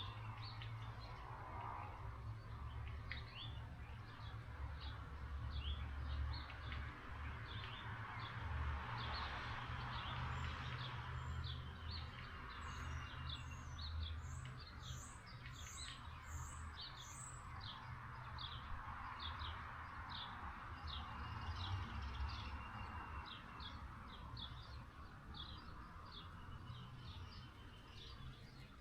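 A small bird chirping over and over, about two short high notes a second, with a quick run of higher, squeakier notes from another bird about halfway through. Wind buffeting the microphone adds a low rumble and a broad rushing noise.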